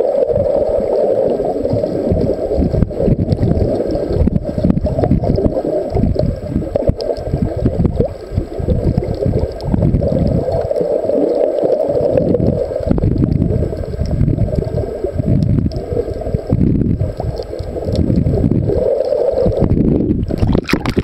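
Water noise picked up by a camera held underwater: a dull, low rushing and sloshing against the housing that swells and fades irregularly.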